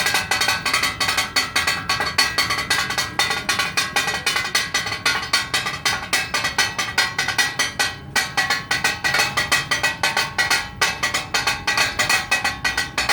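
Two metal spatulas beating rapidly and rhythmically on a flat iron griddle (tawa), chopping and tossing meat for takatak. It makes a fast, continuous clatter of ringing metallic clangs.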